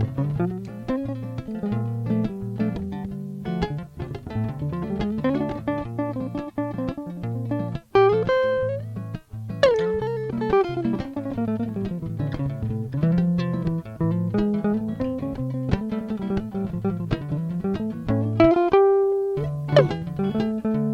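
Höfner Wandergitarre fitted with a single-coil pickup, played: quick plucked notes over low sustained notes, with many notes sliding up and down in pitch.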